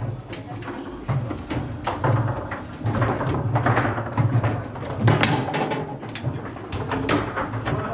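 Foosball table in play: irregular sharp knocks and clacks as the ball is struck by the figures and hits the table, with the rods rattling.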